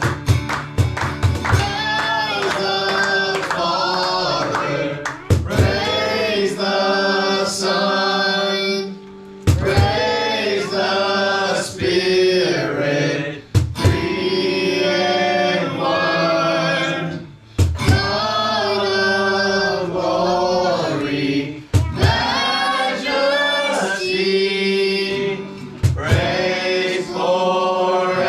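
Worship song: a group of voices singing over instrumental backing, with sustained low notes and occasional drum hits.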